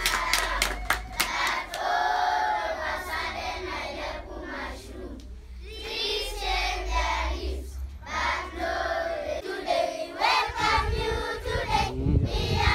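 A group of schoolchildren singing together, opening with a few sharp handclaps, over a low steady rumble that stops near the end.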